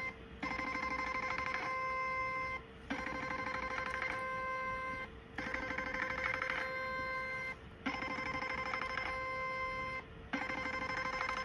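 Ultraformer 7D HIFU machine sounding a steady ringing tone while it fires shots through the handpiece, in runs of about two seconds broken by short pauses, five times over.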